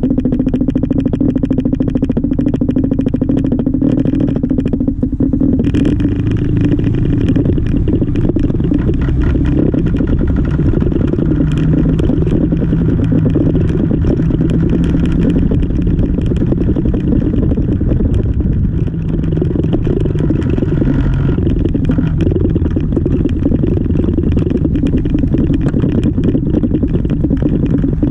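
Yamaha XMAX 300 scooter under way, its single-cylinder engine running with heavy wind noise on the camera microphone. The engine note shifts in pitch as the speed changes, dropping lower partway through.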